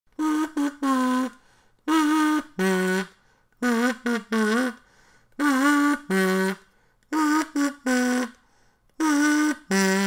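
A voice humming a short tune in six brief phrases, alternating groups of three notes and two notes, with short pauses between them.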